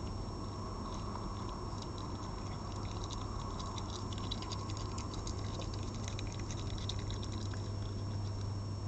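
Red fox eating from a plate of meat: rapid, irregular wet clicks and smacks of chewing and lapping, thickest from about two seconds in, over a steady low hum.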